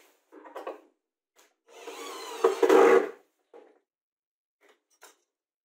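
Plywood board dragged and scraped across a wooden base, a single rubbing scrape with a squeaky edge lasting over a second, about two seconds in. Light wooden knocks from handling come before and after it.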